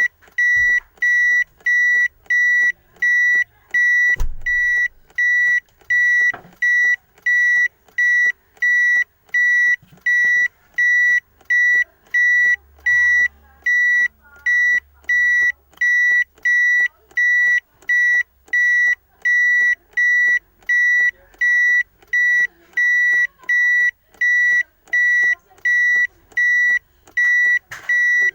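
Car's reverse warning beeper sounding a steady, evenly repeated high beep, about three beeps every two seconds, the sign that the car is in reverse gear. A low thump comes about four seconds in.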